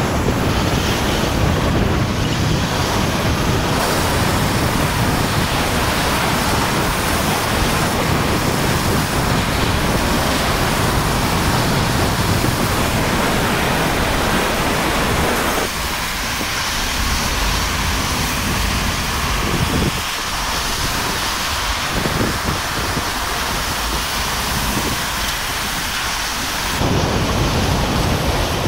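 Hurricane-force wind and driving rain, with the gusts buffeting the phone's microphone into a loud, steady rumble. The noise changes character abruptly a few times but never lets up.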